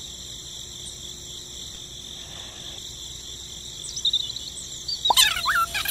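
Crickets chirping in a steady, continuous high trill. About five seconds in, high squeaky gliding chirps break in over it.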